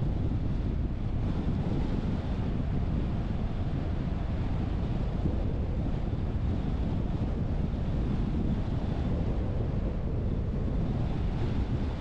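Steady low rumble of a moving car: road and wind noise, even throughout.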